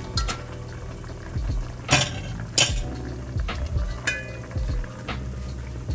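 A spoon clinking and knocking against a cooking pot while the food is stirred: about six separate sharp strikes, the loudest two about two and two and a half seconds in, over a low steady hum.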